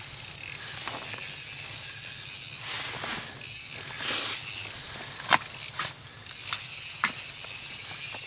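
Steady hiss with a few sharp clicks, and twice a short spell of fine rapid ticking: a light spinning reel being cranked as a lake trout is brought up on 4-pound line.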